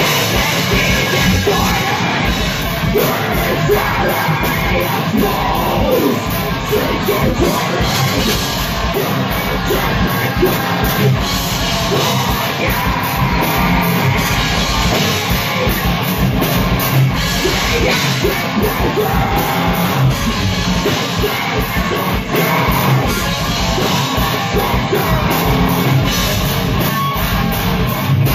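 Live rock band playing loudly: electric guitars and a fast-hit drum kit under a vocalist yelling into the microphone.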